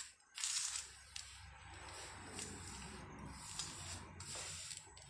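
A hand mixing a dry stuffing of grated coconut, roasted gram flour and crushed peanuts on a steel plate: a soft rustling and scraping of fingers through the crumbly mixture against the metal, loudest about half a second in.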